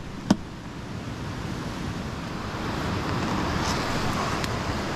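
Steady rush of river rapids, with the kayak's hull scraping over leaf litter and snow as it is dragged along the bank. One sharp knock comes about a third of a second in.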